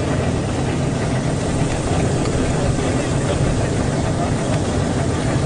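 Brush-roller ginger peeling and washing machine running: a steady low motor hum under a constant dense rushing, churning noise.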